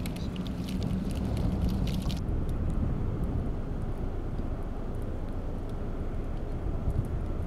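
Smouldering wreckage of burned houses giving off a scatter of small crackles and pops over a steady low rumble. The crackling stops about two seconds in, leaving only the rumble.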